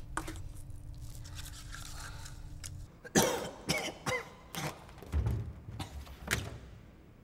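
A low steady hum, then from about three seconds in a man coughing hard in a fit of six or seven loud, harsh coughs as he doubles over.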